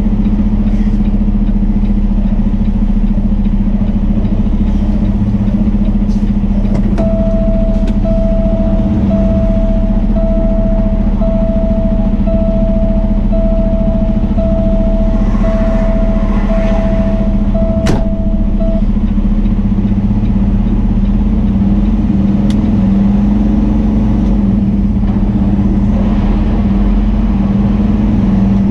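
Peterbilt 389 semi-truck's engine and road noise droning steadily inside the cab. About seven seconds in, a cab warning beep starts sounding about once a second. It stops about twelve seconds later, around a sharp click.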